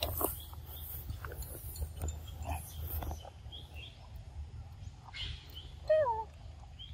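Young macaques eating fruit: small, moist clicks of biting and chewing over a low rumble, then about six seconds in a loud, short, falling whine-like call from a young macaque.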